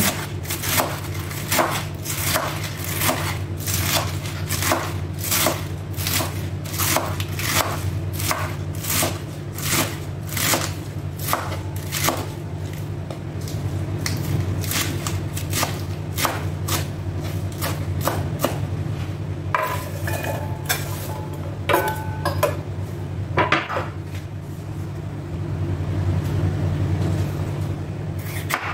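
Chef's knife chopping lettuce on a wooden cutting board in quick, even strokes, about two a second. About two-thirds of the way in, the strokes give way to a few scattered knocks and short ringing clinks, over a steady low hum.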